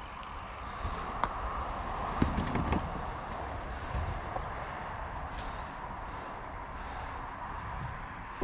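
Mountain bike riding a dirt jump line: a steady rush of tyres rolling on packed dirt and wind on the helmet camera, with a few light knocks and rattles from the bike about a second and two seconds in.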